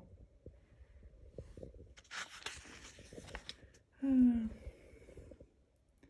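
A breathy rush of air lasting more than a second, about two seconds in, then a brief murmured voice with a falling pitch about four seconds in.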